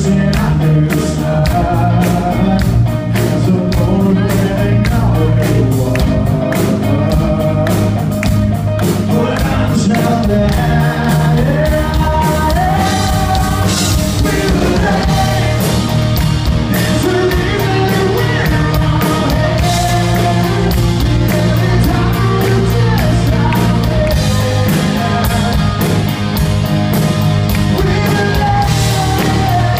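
Live rock band playing: electric guitar, bass and drums keeping a steady beat, with a male lead voice singing over them.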